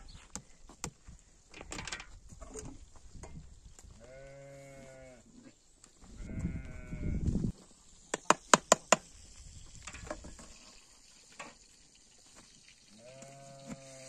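A farm animal calling three times, each a drawn-out pitched call of about a second, the second one over a low rumble. Between the second and third calls there is a quick run of five sharp clicks or knocks in about a second, the loudest sounds of all.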